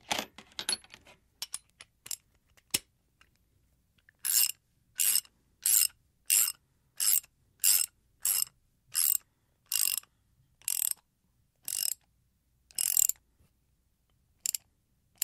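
Large ratchet wrench being worked back and forth. A few loose clicks come first, then about a dozen short ratcheting bursts, each a rapid string of pawl clicks. The bursts come about one and a half a second at first and slow toward the end.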